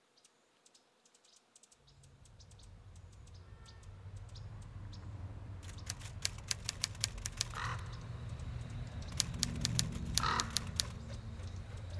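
A low drone swelling, with two runs of rapid sharp clicking in the second half, each carrying a short harsh crow-like caw.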